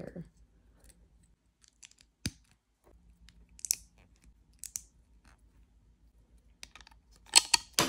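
Lego bricks being handled and pressed together: scattered small plastic clicks, one sharper snap about two seconds in and a quick run of clicks near the end, with a couple of soft, brief rustles in between.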